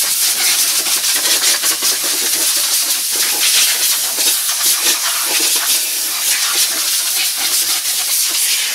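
Compressed-air blow gun hissing loudly and continuously as it blasts dirt off a Volkswagen engine case, the hiss flickering as the nozzle is moved over the metal; it cuts off sharply at the very end.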